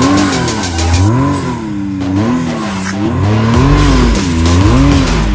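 Can-Am Maverick X3's turbocharged three-cylinder engine revving up and down in repeated throttle blips, about once a second, as the machine crawls up a rocky dirt ledge.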